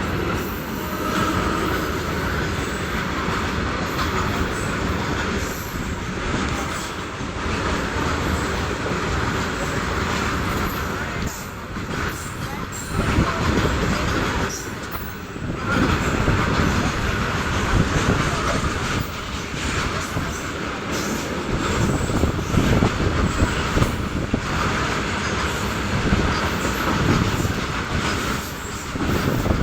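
Freight train passing at speed: steel wheels running over the rails in a continuous rush, with brief dips about twelve and fifteen seconds in.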